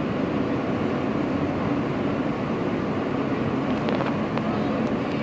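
Steady rumble of an Alstom R160 subway car heard from inside as it runs along the track, with a few light clicks about four seconds in.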